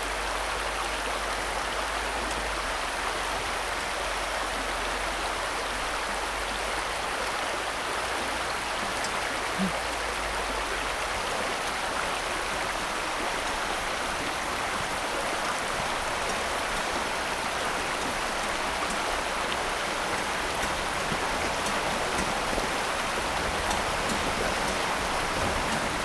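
Creek water rushing steadily over rocks, an even unbroken splashing noise.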